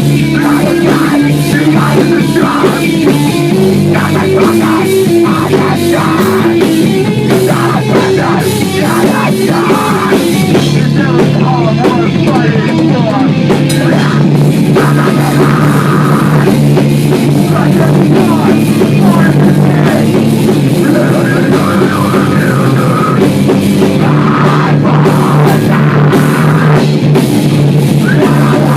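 Loud heavy rock music: a drum kit beating steadily under a repeated, low-pitched guitar riff.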